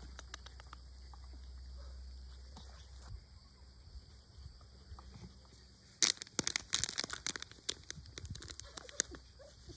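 Thin plastic bag crinkling and rustling in quick, sharp crackles, starting about six seconds in as it is handled and shaken.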